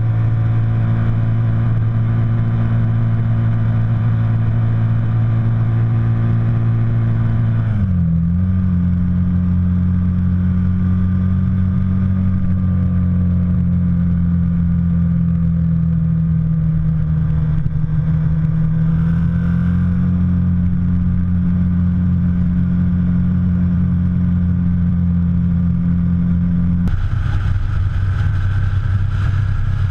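Ducati Monster's L-twin engine running steadily under way, recorded close up on the motorcycle. The engine note drops and changes about eight seconds in. Near the end it gives way to a car's engine and road noise.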